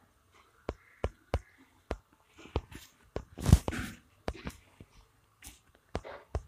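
Fingertip taps on a phone touchscreen: about a dozen short, sharp clicks at uneven spacing, with one louder thump about three and a half seconds in.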